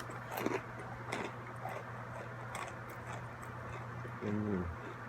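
Close-up chewing of crunchy pretzels dipped in cheese: irregular crisp crunches, with a brief hummed voice sound about four seconds in, over a steady low electrical hum.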